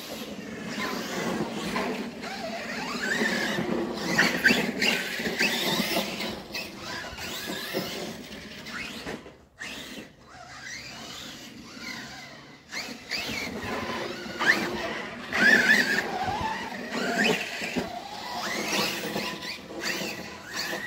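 Radio-controlled car's electric motor whining, rising and falling in pitch as it is throttled and driven about, with squeals.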